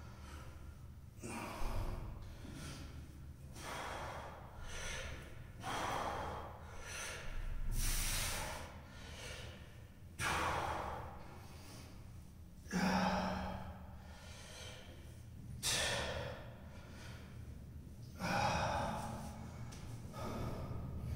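A man breathing hard from exertion during repeated forward-bending stretches: loud, noisy breaths in and out, one every two seconds or so.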